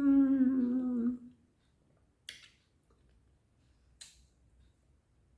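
A woman's long closed-mouth 'mmm' of enjoyment while tasting sweet fruit, holding one pitch and sinking slightly over about a second, followed by two short clicks, a couple of seconds apart.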